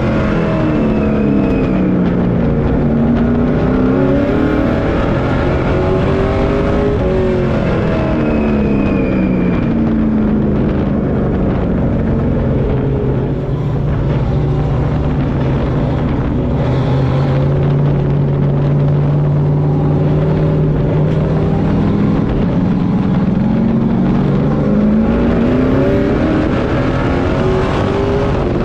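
Pro Truck race truck's engine heard from inside the cockpit, under way in a race. Its revs fall, rise and fall again over the first nine seconds, hold steady at a lower pitch for about ten seconds, then climb again near the end, over a constant rush of noise.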